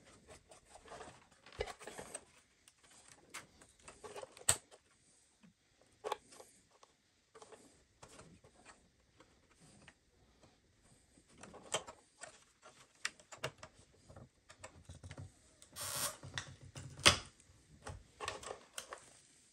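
Irregular clicks, taps and short scrapes of hands working the glued plastic front panel of an onn. large Bluetooth speaker loose.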